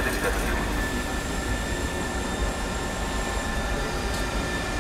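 Red high-speed electric train rolling past the platform at low speed: a steady rumble of wheels on rails, with a faint steady whine above it.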